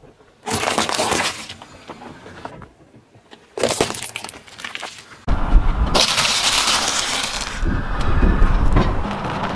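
A car tyre rolling slowly over food on asphalt and crushing it, with cracking and crunching, in three short takes that each start abruptly: about half a second, three and a half seconds and five seconds in. The last and longest take carries a deep rumble under the crunching.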